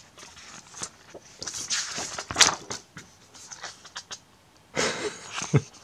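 Paper calendar pages being handled and turned over, rustling in a few separate spells, loudest a little over two seconds in. A brief low voiced sound comes near the end.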